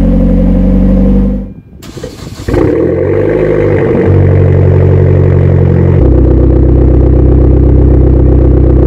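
Hyundai Genesis Coupe 2.0T turbocharged four-cylinder running steadily through its stock catback exhaust, then after a brief break, starting cold through an ISR Race catback with the muffler and resonator deleted: it catches about two and a half seconds in and runs loud at a raised cold idle, the note shifting in steps twice as it settles to idle.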